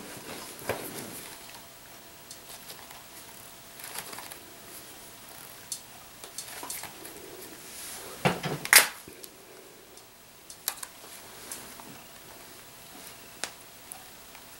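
Apple being split in half by hand: faint clicks and creaks of the fruit under the thumbs, then a sharp crack about eight and a half seconds in as the flesh gives way.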